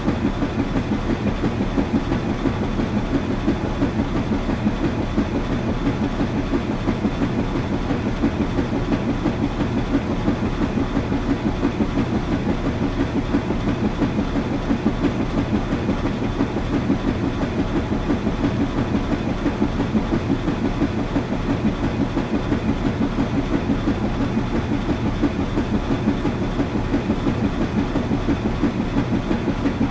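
Washing machine running steadily, with an even rapid pulsing over a low steady hum.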